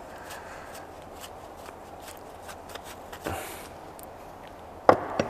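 Faint clicks and rustling of metal engine parts handled in gloved hands, a piston and connecting rod with its cap, with a sharp knock near the end as a part or tool is put down on the workbench.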